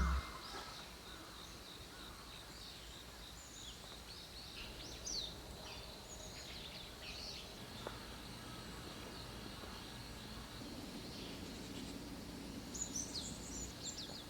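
Small birds chirping faintly in short, scattered calls over a quiet, even background hiss, with a denser run of chirps near the end.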